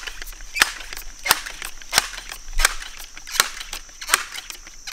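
Benjamin 392S multi-pump .22 pellet air rifle being pumped: a sharp clack from the pump lever about every 0.7 seconds, seven strokes in a row. Crickets chirr steadily behind.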